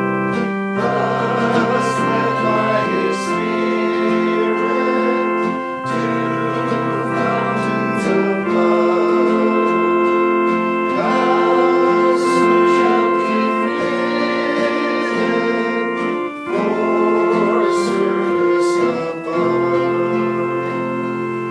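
Organ music played in slow, sustained chords that change every two to three seconds, dying away near the end.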